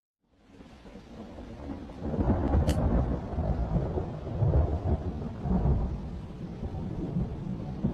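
Low, rolling rumble of a storm cloudburst, fading in from silence over the first two seconds and then holding steady.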